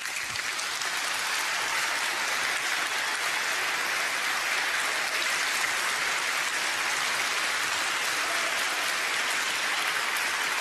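Large audience applauding. The clapping breaks out suddenly at the start and holds as a dense, steady roar.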